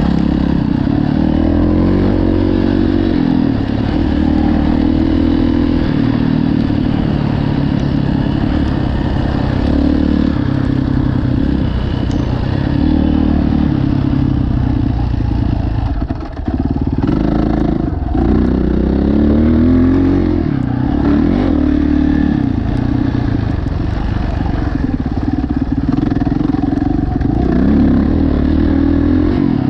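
Dirt bike engine running under way, its pitch climbing and falling as the throttle is worked and gears change. About halfway through, the throttle shuts off for a moment before it pulls again.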